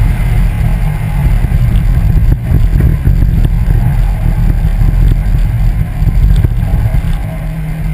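Car driving along a paved road, heard from a camera on its front grille: a loud, steady low rumble of wind and road noise.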